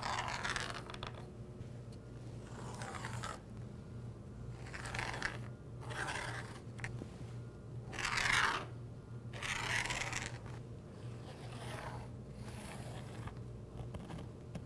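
Pencil drawing straight lines along a steel rule on plywood: a series of about seven short scratchy strokes, the loudest about 8 seconds in, over a low steady hum.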